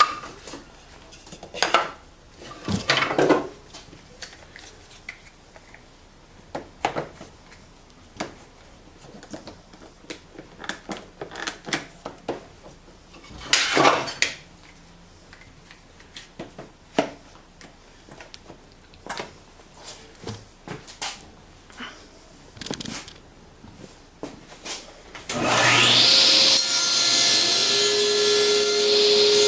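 Scattered knocks and clicks of wood and a tenoning jig being handled and set up. About 25 seconds in, a table saw is switched on and its motor rises in pitch to a steady whine at full speed.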